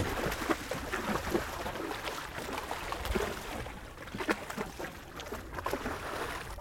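A hooked jack thrashing at the surface, making a run of irregular splashes and sloshing water.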